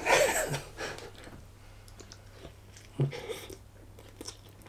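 A person biting into and chewing a chilli dog in a soft bun, with soft wet mouth sounds and small clicks, and one brief louder sound about three seconds in.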